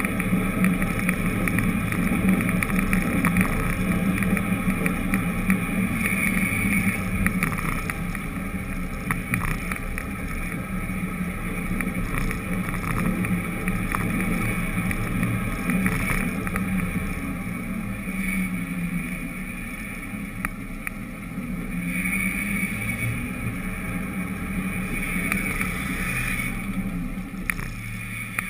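Steady rumble of a vehicle driving along an asphalt street, with engine and road noise heard close up from a camera mounted low on the vehicle. It eases briefly about two-thirds of the way through.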